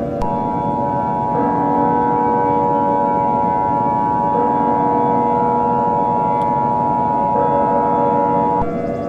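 Emergency Alert System attention signal: a steady two-tone beep held for about eight seconds, which cuts off shortly before the end. Underneath it is a low droning backdrop that shifts pitch every three seconds or so.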